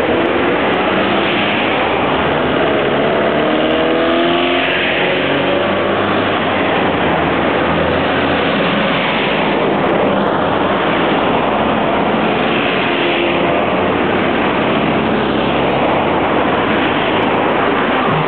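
Road traffic passing close by on a busy road: a continuous wash of car engine and tyre noise that swells as each car goes past. One engine rises in pitch as the car accelerates about four seconds in.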